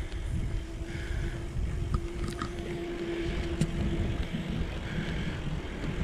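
Wind buffeting an action camera's microphone while riding a bicycle along a paved path, with a steady low rumble of the ride. A faint steady hum runs through most of it and fades out near the end.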